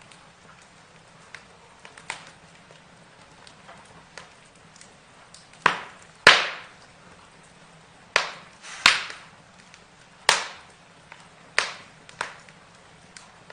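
Burning wood crackling and popping: irregular sharp cracks, faint at first, with several loud pops from about halfway on.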